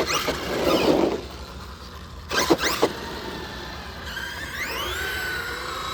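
Electric drive of a 4S RC monster truck whining through quick throttle blips, with a loud rushing burst about a second in. From about four seconds the whine climbs in pitch and holds a steady high tone as the truck runs at speed.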